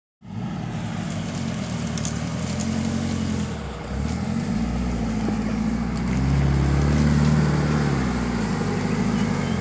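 Off-road 4x4's engine working under load as it crawls up a steep, rutted dirt trail, the revs rising and falling; it eases off briefly about four seconds in, then climbs to its loudest a few seconds later.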